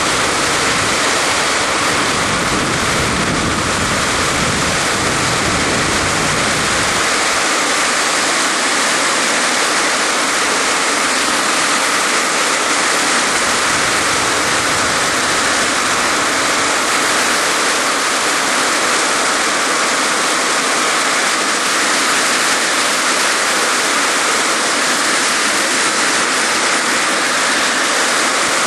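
Heavy rain pouring down in a loud, steady hiss. A low rumble underneath fades out about seven seconds in.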